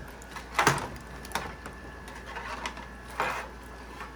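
Handling noise as a computer power supply's bundled cables are unfastened: three short scrapes and clatters, the loudest a little over half a second in.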